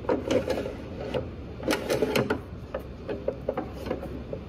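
Handling of a metal drop-lid support arm: a series of irregular light clicks and knocks from the metal bar and its bracket, with some rubbing in between.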